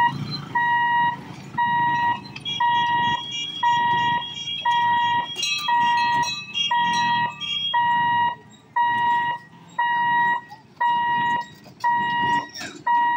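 Railway level-crossing warning buzzer beeping at an even, steady rate, about four beeps every three seconds, with a single high tone, which signals that a train is approaching and the gate is closed.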